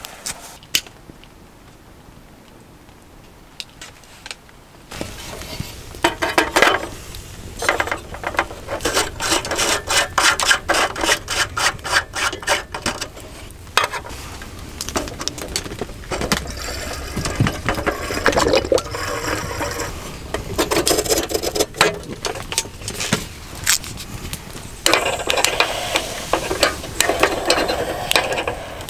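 Wood kindling fire crackling and snapping in a small steel fire grill as it catches. It starts faintly, then from about five seconds in turns into dense, rapid, irregular crackles.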